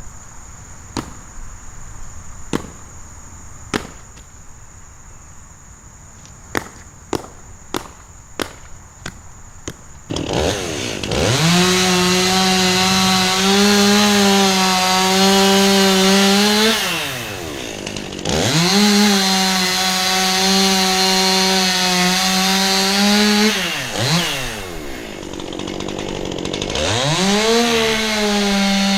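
A series of sharp, irregular knocks, then a chainsaw starts about a third of the way in and runs at full throttle in two long stretches of about five seconds, dropping back between them and rising again near the end.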